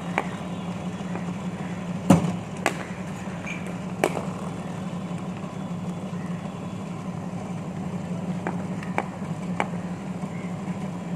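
Steady hum of a cricket bowling machine's motors, with several sharp knocks of a cricket ball, the loudest about two seconds in.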